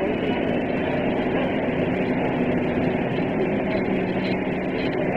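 Steady machinery drone with a low hum underneath, unchanging throughout.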